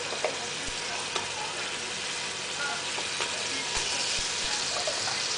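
Tomato sauce sizzling in a frying pan, a steady hiss with a few faint clicks, growing a little brighter about four seconds in.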